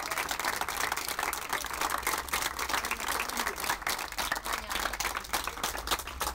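A crowd applauding, many pairs of hands clapping at once.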